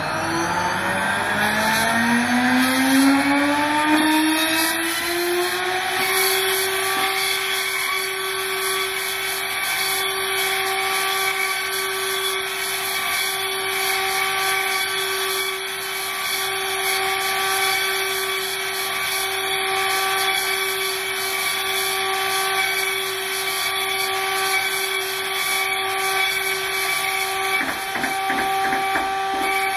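A machining spindle on a parallel-kinematic robot spinning up, its whine rising over the first six seconds and then holding a steady pitch, over a steady high hiss with a flickering crackle. A quick run of ticks comes near the end.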